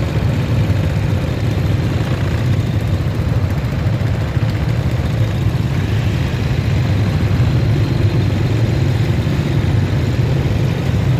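Motorbike engines idling and running in slow, stop-and-go street traffic, a steady low hum with no break.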